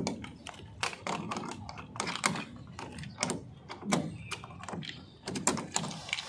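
A padlock being hooked through the rusty slide bolt of a painted metal door and snapped shut, with metal clinking on metal: a run of irregular clicks and clanks, several of the sharpest near the end as the lock closes.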